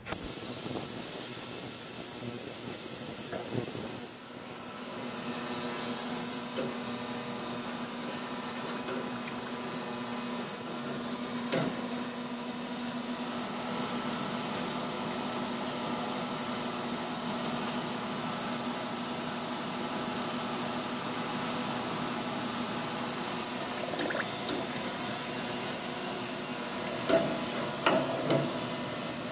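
Ultrasonic gun-cleaning tank running with its lube side filled with Sonic Lube, a steady hiss over a low hum that starts abruptly: the cavitation stage that dissolves cosmoline off the submerged gun parts. A few light knocks come near the end.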